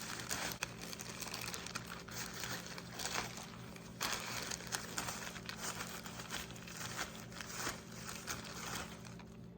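Crushed hot Cheetos crumbs crackling and crinkling, with many small crunchy clicks, as a crusty fried corn dog is rolled and pressed in them.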